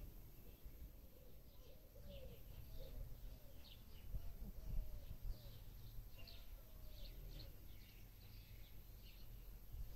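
Small birds chirping faintly in short, scattered calls, over a low steady rumble.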